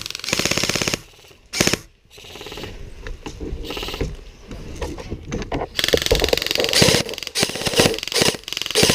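Airsoft gun firing a rapid full-auto burst of clicks lasting about a second, followed by scattered single sharp shots and clacks from the game around it.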